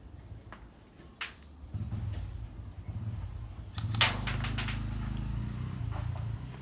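Airsoft guns firing: a single sharp shot a little over a second in, then a quick string of about five shots around four seconds in, over a low steady hum.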